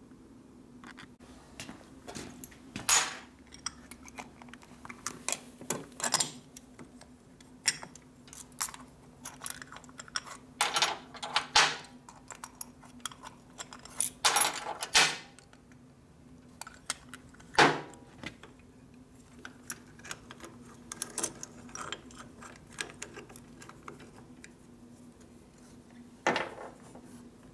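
Loose steel washers clinking and rattling against each other and on metal as they are handled and fitted in, in irregular clusters of sharp metallic clinks.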